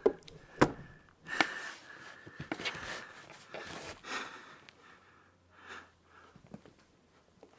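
A man breathing hard, with forceful exhales, as he strains at clapping push-ups. There are a few sharp slaps in the first three seconds, from his hands clapping and landing on the floor.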